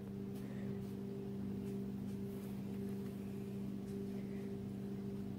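A steady low hum made of several even tones, with no clear sound of the sausage slices being set down.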